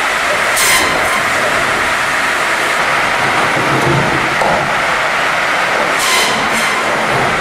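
Log-processing machine running as a log feeds through it: a loud, steady mechanical din. Two brief high-pitched hissing bursts come through it, one about half a second in and one near the end.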